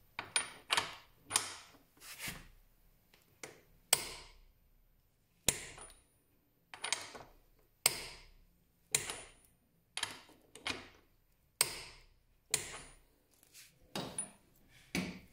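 Socket wrench working the rear axle nut of a motorcycle in short strokes: a series of sharp metallic clicks, roughly one a second with a few longer pauses. The nut is being turned a little past its set torque so that the cotter-pin hole lines up.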